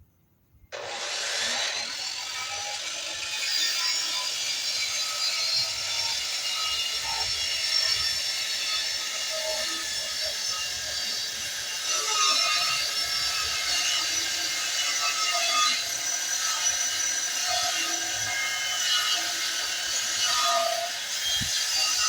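Electric power saw cutting wood, starting abruptly about a second in and then running steadily with a dense, high-pitched whine.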